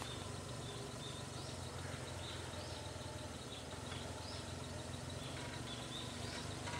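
Suzuki Jimny JA11's small engine idling steadily with a low hum, while a bird calls over and over in short rising-and-falling chirps about once a second.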